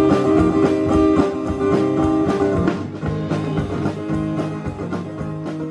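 Live instrumental band music: acoustic guitar strumming over a steady drum-kit beat, a little quieter from about three seconds in.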